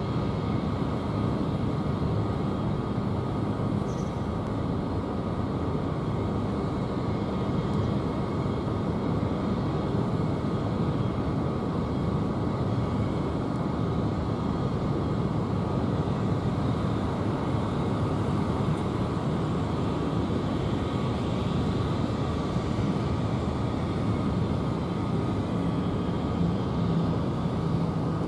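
Airbus A320 jet engines at taxi idle: a steady low rumble with a thin, even whine held over it.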